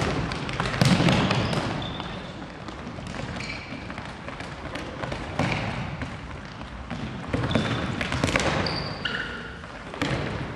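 Futsal play on a wooden gym floor: the ball kicked and bouncing, players' running footsteps, and short high sneaker squeaks, all echoing in a large hall.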